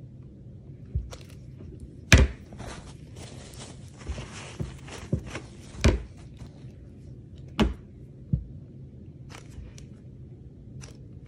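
A loaf of cold process soap and a wire soap cutter handled on a wooden cutting block: a string of knocks and thumps against the wood, the loudest about two seconds in, with a scraping hiss in the middle and a few light clicks near the end.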